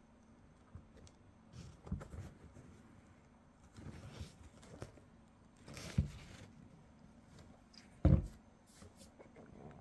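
Handling noise: scattered soft rustles and light bumps as a basketball shoe is turned and its lining touched by hand, with a louder dull thump about eight seconds in.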